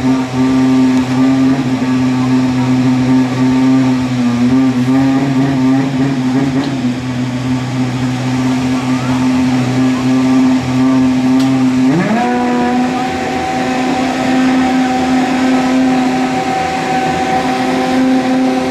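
Formula 1 2.4-litre V8 engine held at steady revs, then quickly raised to higher steady revs about twelve seconds in and held there.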